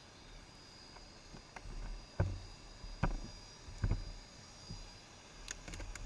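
Three dull thumps a little under a second apart, then a few light clicks near the end: handling knocks.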